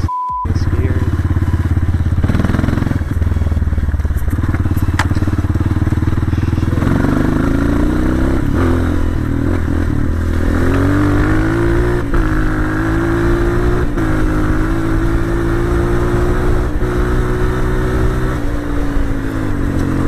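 Dirt bike engine running under way. Its pitch holds low at first, climbs about a third of the way in as the rider speeds up, stays steady and high, then drops near the end as he eases off.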